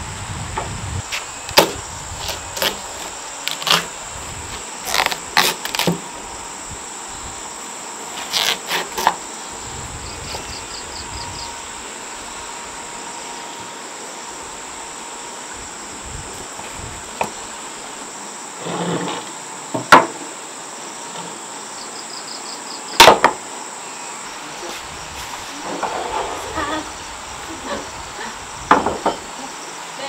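A knife cutting through watermelon, with irregular sharp clicks and knocks of the blade and slices on a ceramic plate and a wooden table. Under it, insects keep up a steady high drone.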